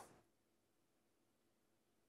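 Near silence: a pause between spoken sentences, with only faint room tone.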